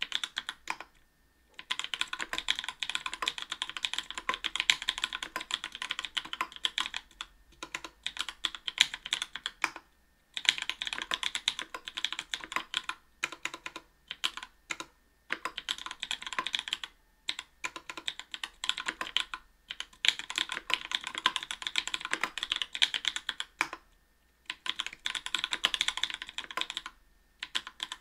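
Fast typing on a mechanical keyboard fitted with lubed NK_ Blueberry 80g tactile switches, an aluminium plate and GMK keycaps. Rapid keystroke clacks come in runs, broken every few seconds by brief pauses.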